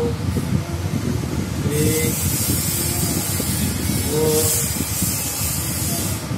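Ballpoint pen scratching across paper as it rules lines along a metal ruler, a hissy scratching that starts a couple of seconds in and stops just before the end. A steady low rumble runs underneath, with a few short hums.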